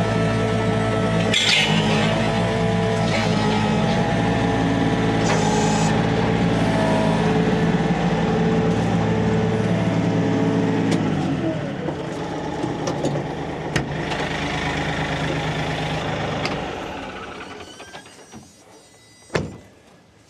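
Compact tractor's diesel engine running steadily while the three-point quick hitch picks up and lifts a box blade; about eleven seconds in the engine note drops lower, and it fades out near the end. A single sharp knock follows shortly after.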